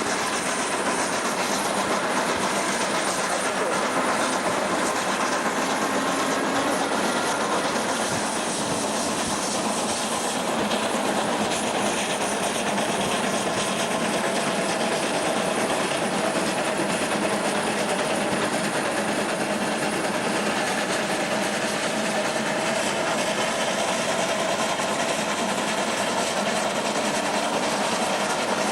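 Train of vintage FS 'Centoporte' coaches running along the track: steady rolling noise of wheels on rails, even in level throughout.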